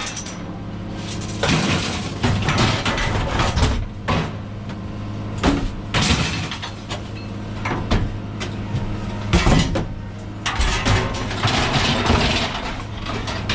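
A vehicle running with a steady low hum, with repeated irregular knocks and rattles over it.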